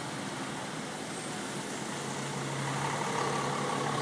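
Motor vehicle traffic: a vehicle's engine running with a steady low hum that comes in about two seconds in, over a constant background rush.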